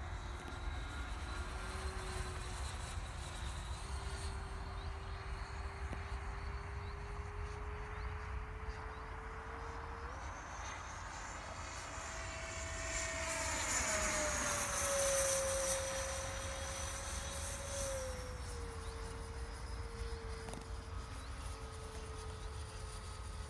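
Electric ducted-fan whine of a Sebart Mini MB-339 RC jet model in flight: a steady whine that grows louder about 13 to 16 seconds in as the model passes, its pitch dropping as it goes by, then settling back to a steadier, quieter whine.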